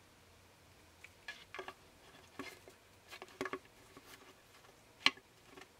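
Plastic NECA Burning Godzilla action figure being handled and set on a wooden tabletop: scattered light clicks and knocks, with one sharper knock about five seconds in.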